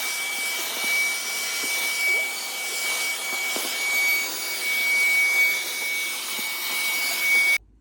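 Cordless stick vacuum cleaner with a high-speed brushless motor running at full suction: a steady rushing hiss with a high, steady whine over it, and a few faint ticks. It cuts off suddenly near the end.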